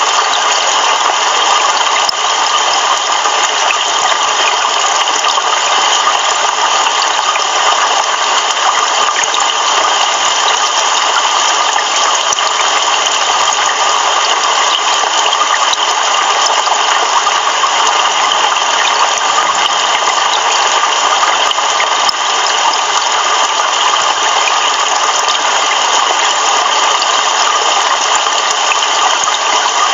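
Heavy rain pouring steadily: a dense, even hiss that holds at one level throughout.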